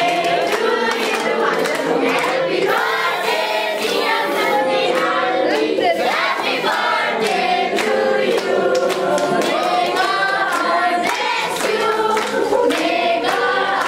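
A crowd of adults and children singing a birthday song together, with hand clapping throughout.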